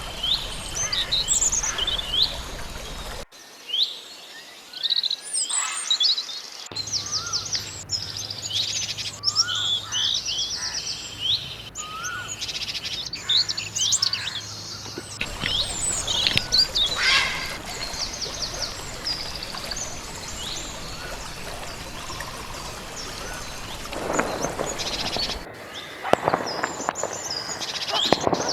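Mixed birds chirping and singing, many short high calls and trills overlapping. The recording cuts abruptly to a different take a few times, the background changing with each cut, and there are some lower, louder calls near the end.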